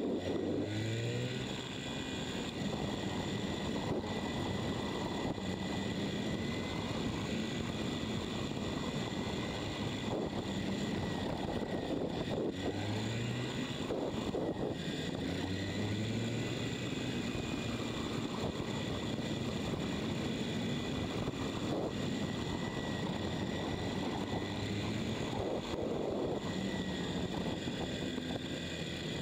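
Motorcycle engine heard from an onboard camera, its pitch rising in short repeated sweeps as it revs and shifts, over a steady rush of riding noise. The footage is sped up, which raises the pitch.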